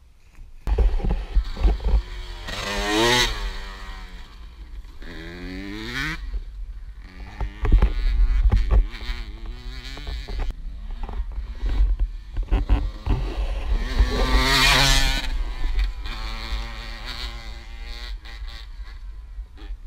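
Dirt bike engine revving repeatedly, its pitch climbing and dropping several times, with low rumbling and knocks on the microphone.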